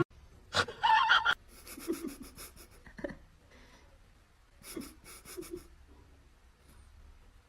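An animal breathing: a handful of short, breathy sounds with quiet between them, fading out after about six seconds.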